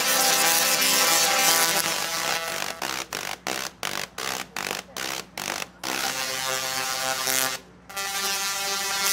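Two computer-controlled musical Tesla coils playing a tune with their arcs, in buzzy electric notes. Held notes give way, about three seconds in, to a run of short staccato notes at about three a second, then held notes again near the end.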